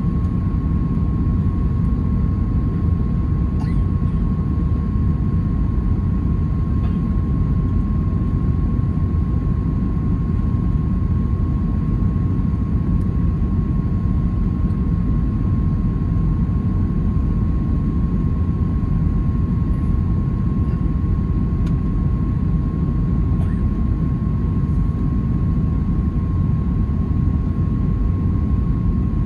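Steady low rumble of engines and airflow inside an Airbus A320's cabin during the descent on approach, with one steady high whine running through it.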